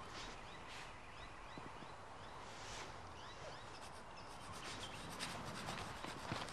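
Faint scraping of wood rubbed against wood, as when sticks are worked to make fire by friction, with irregular strokes that grow denser near the end. A few short rising chirps sound in the background.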